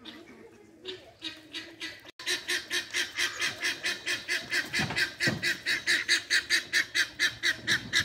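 Guineafowl calling: a long, even run of quick repeated cackles, about four or five a second, starting about two seconds in.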